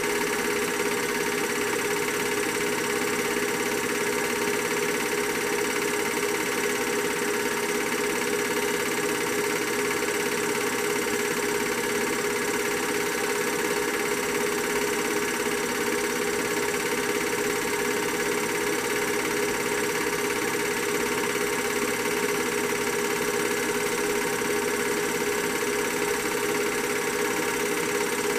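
Film projector running: a steady, unchanging mechanical hum with one constant tone and a hiss above it.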